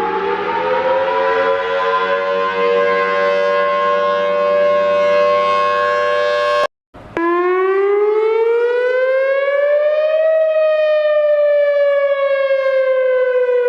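Outdoor tornado warning siren winding up to full pitch and holding a steady chord of several notes. It cuts off abruptly about seven seconds in. A second siren then starts, its single clean tone rising for about three seconds and then slowly falling.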